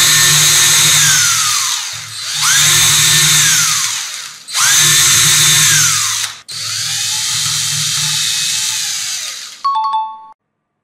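Power drill drilling holes in wood with a small twist bit held in an aluminium pop rivet, run in four bursts of about two seconds, each whining up to speed and winding down. Near the end a short two-tone ding sounds.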